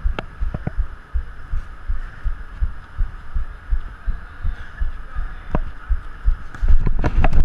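Dull thuds of footsteps on artificial turf, jolting a body-worn action camera about two to three times a second, over a steady hum, with a few sharp knocks and quicker, louder thuds near the end.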